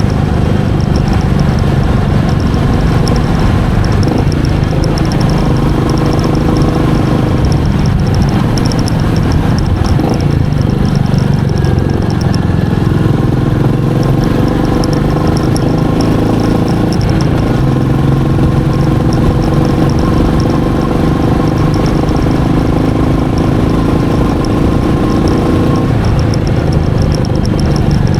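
Royal Enfield Meteor 350's single-cylinder engine running under way, its pitch rising and falling with the throttle.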